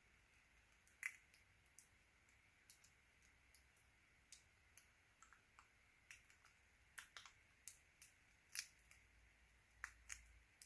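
Faint, irregular small clicks and taps of phone parts and a repair tool being handled as an Alcatel 7 smartphone is reassembled, about a dozen sharp ticks scattered unevenly.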